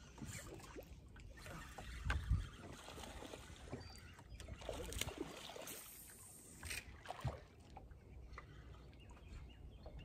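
Quiet sounds aboard a fishing boat: water lapping against the hull, with scattered light knocks and a couple of low thumps.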